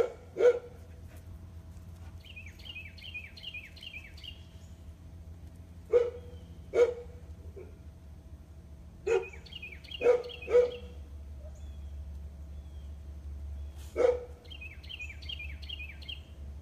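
A dog barking in short single barks: two at the start, two about six seconds in, three around nine to eleven seconds and one near fourteen seconds. Between the barks a songbird sings three quick runs of repeated falling notes.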